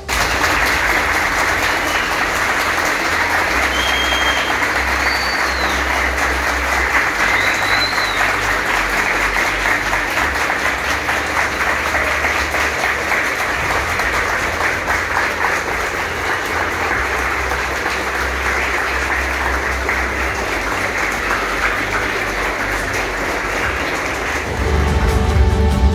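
A large crowd of schoolchildren clapping and applauding steadily, with a few short high whistles in the first several seconds. Music comes in near the end.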